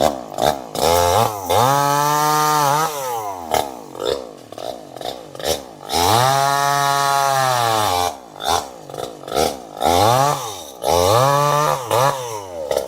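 Chainsaw engine being throttled up and down over and over. It climbs to high revs and holds there twice for about one and a half to two seconds each. In between are short, quick throttle blips that fall back toward idle.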